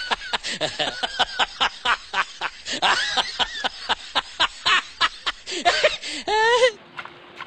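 Loud, rapid laughter dubbed onto a lion, as in the 'laughing lion' meme edit: a quick run of ha-ha pulses, about five a second, ending in one longer laugh near the end.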